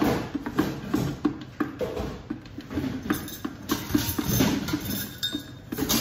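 A plastic stick pushed and worked down through the lid of a stopped countertop blender, knocking and clinking against the plastic jug and lid in irregular taps as it presses down a thick cream.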